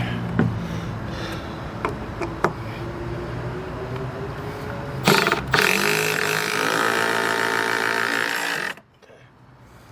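A few light taps, then a loud knock about five seconds in. After the knock a handheld power tool's motor runs steadily for about three seconds and cuts off suddenly.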